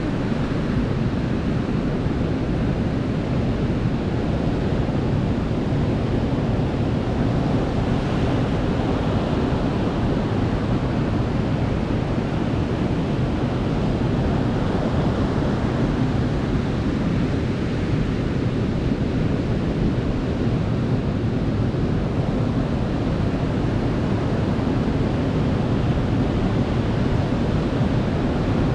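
Sea surf washing onto a beach: a steady, low, continuous rush of waves without distinct separate breaks.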